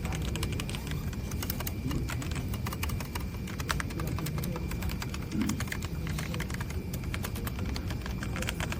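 Typing on a full-size mechanical keyboard with red linear switches (ZIYOU K3): a fast, irregular run of keystroke clicks.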